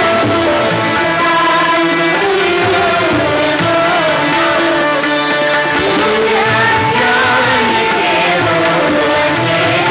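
Live Indian devotional prayer song with bansuri flute, sitar and tabla, and singing; the melody glides from note to note over steady drones.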